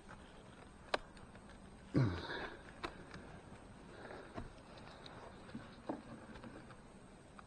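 Wooden beehive boxes and frames being handled: a few light clicks and knocks spaced about a second or more apart, with a sniff about two seconds in.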